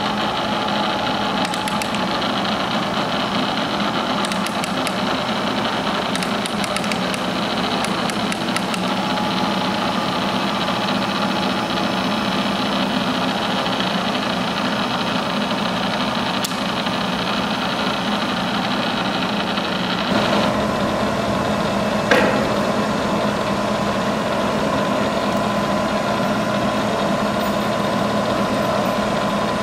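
Bridgeport Series 1 vertical milling machine running, its 2 hp motor and variable-speed spindle head giving a steady mechanical hum. About two-thirds of the way through, the hum shifts to a new steady pitch, and a single sharp click follows a couple of seconds later.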